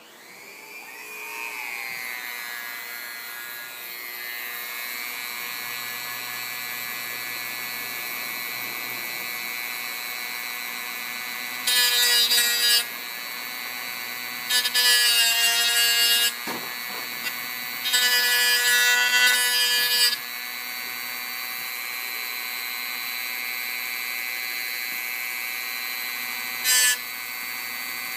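Dremel rotary tool spinning up to a steady high whine, then grinding down solder joints on model railroad rail in three louder bursts and a short one near the end.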